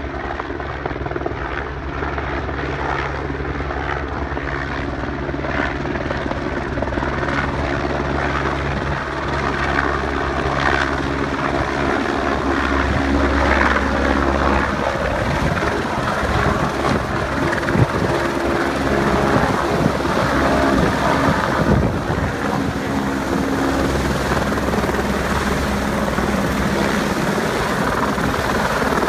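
Helicopter coming in to land: the steady beat of the main rotor with engine whine, growing louder as it approaches and descends.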